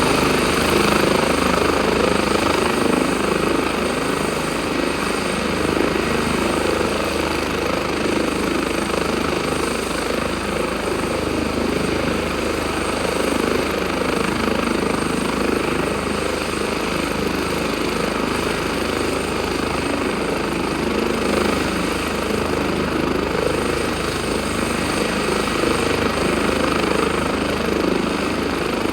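Airbus H145 helicopter running steadily: rotor noise with the high whine of its twin turboshaft engines, holding at an even level throughout.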